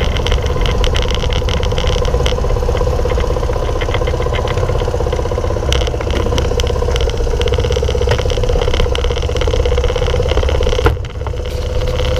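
Honda 90 step-through's small single-cylinder four-stroke engine running at a steady pitch while riding, heard from on board with a low rumble. Near the end there is a click and a brief dip in the sound.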